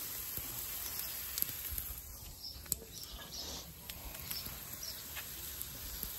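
Chicken sizzling on a charcoal grill: a low steady hiss with scattered small crackles and ticks.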